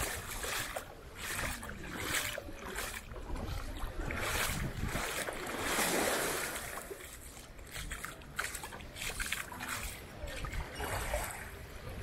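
Seaside ambience: sea water washing with wind on the microphone, swelling to a louder rush about six seconds in.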